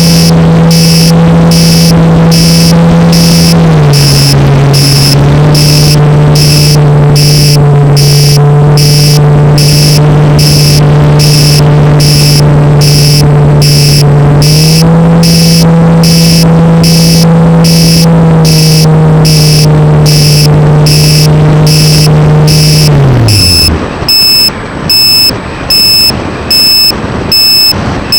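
Electric motor and propeller of an RC plane running at steady throttle, its pitch shifting down and back up a couple of times. It winds down and stops about 23 seconds in, and a beeper then sounds about once a second.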